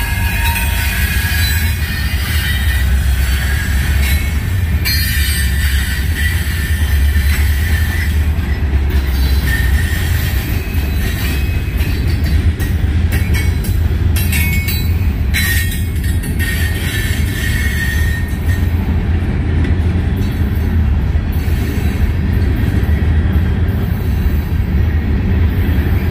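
Freight train cars rolling past: a steady low rumble of wheels on rail, with steel wheels squealing now and then.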